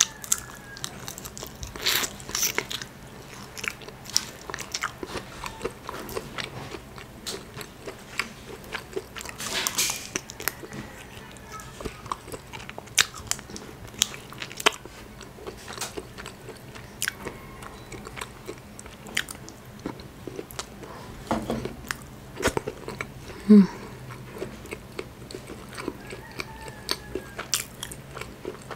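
Close-up eating sounds of crab and shrimp in Cajun sauce: wet biting and chewing with many scattered short crunches and clicks. A short low voiced sound from the eater, the loudest moment, comes about two-thirds of the way through.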